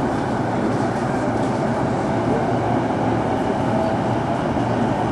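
Inside a Keihin-Tōhoku Line commuter train car, the steady running noise of wheels and motors as the train rolls along the platform.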